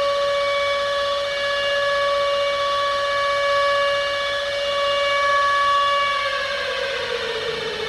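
Civil defence siren sounding a single steady note, then winding down, its pitch falling steadily from about six seconds in.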